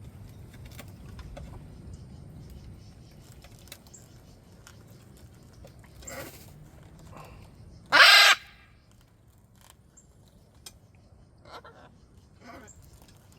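Parrot calls: a few short squawks, then one loud, harsh screech about eight seconds in, with faint clicking between them.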